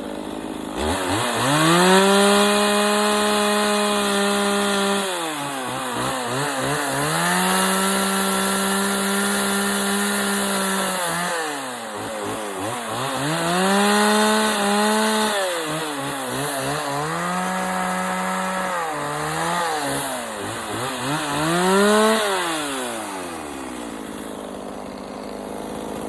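Two-stroke carving chainsaw revved up and held at high speed for a few seconds at a time, about four times, dropping back between, with a couple of quick blips before it falls to idle near the end.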